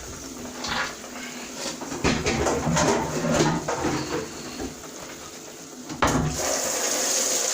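Knife, bowl and dishes knocking and scraping in a series of small irregular clatters as potatoes are handled for peeling. About six seconds in, a tap starts running water steadily.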